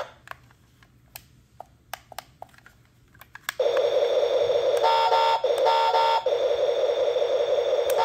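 A few faint clicks, then about three and a half seconds in the toy fire truck's built-in electronic siren starts: a loud, steady, fast-warbling alarm tone, with a brief break and a few stepped higher beeps twice near the middle.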